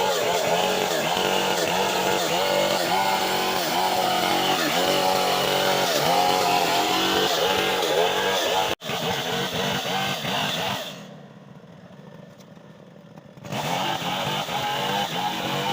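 Stihl chainsaw running hard while cutting a coconut palm trunk, its engine pitch wavering up and down with the cut. It drops to a much quieter sound about eleven seconds in for a couple of seconds, then runs loud again.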